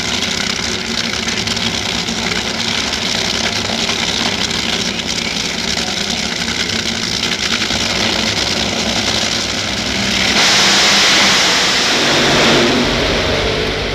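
Two nitro-burning, supercharged Funny Car V8 engines idle at the starting line with a steady, rumbling run. About ten seconds in, they launch at full throttle into a much louder, harsher roar that lasts about two to three seconds, then eases slightly as the cars run away down the track.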